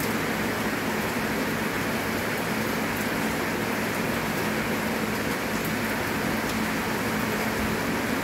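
Steady rain falling on a wet yard and concrete, an even hiss without breaks, with a faint steady low hum underneath.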